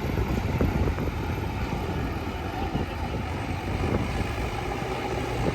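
Diesel engine of heavy earthmoving machinery running steadily, a continuous low rumble.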